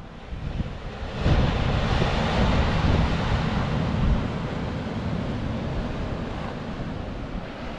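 Wind buffeting the microphone over surf breaking on the beach below, the wind picking up about a second in.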